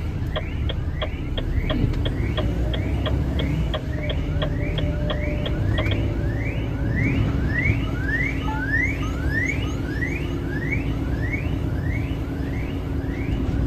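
Truck engine running and road rumble heard from inside the cab while driving slowly. Over it a regular high squeak repeats: short ticks about three times a second at first, becoming rising chirps a little under twice a second from about halfway.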